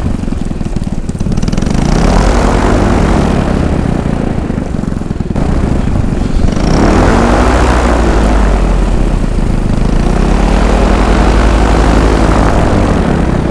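Paramotor engine and propeller running on the pilot's back, the revs rising and falling back about three times during a reverse launch attempt in which the wing does not come up. Wind buffets the microphone underneath.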